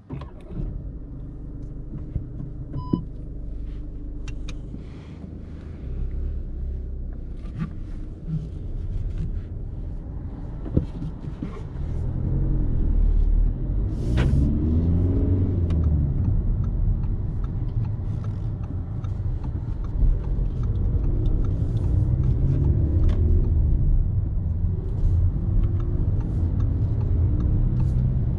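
1.6-litre four-cylinder turbo diesel of an Audi A3 30 TDI running under way, with low road and tyre rumble from inside the car. The engine note climbs and then falls back around the middle, and again later.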